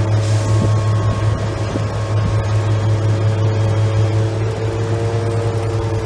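Large tracked excavator's diesel engine running steadily with a constant low hum while the machine holds a suspended tank on its slings.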